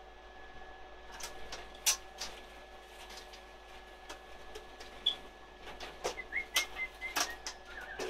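Scattered clicks and knocks of someone rummaging about while out of sight, with a sharp knock about two seconds in and a cluster of clatters in the last three seconds. A few short whistled notes come near the end, over a faint steady tone.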